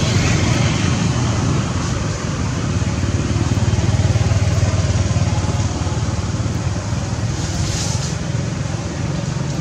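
Steady low rumble of motor-vehicle noise, an engine running without letting up.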